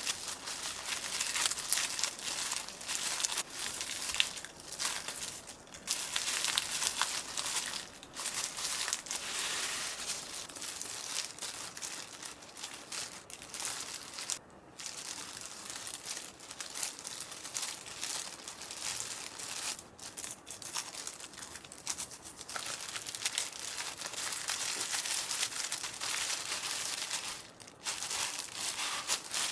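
Clear disposable plastic gloves crinkling and crackling almost without pause as hands roll gimbap, with dry seaweed sheets rustling under them. There are brief breaks about halfway through and near the end.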